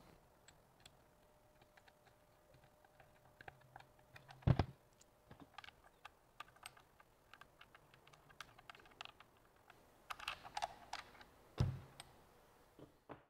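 Small clicks and light rattles of hands turning green thumbscrews to fasten a quick-mount bracket to the top and bottom of a field monitor. Two dull thumps, about a third of the way in and near the end.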